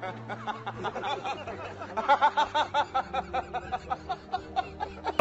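Men laughing hard in rapid, repeated 'ha-ha' pulses, over a low steady music drone.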